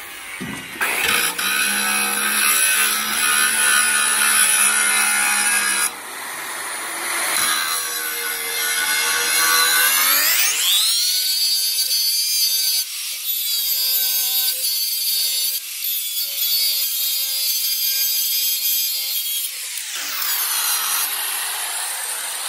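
Angle grinder grinding the steel edge of a tractor loader bucket, a whining motor over the scrape of the disc on metal. Its pitch rises sharply about ten seconds in and drops again near the end.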